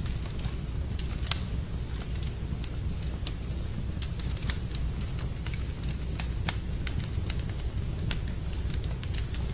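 Fire burning in a fireplace: a steady low rumble of flames with frequent sharp, irregular crackles and pops.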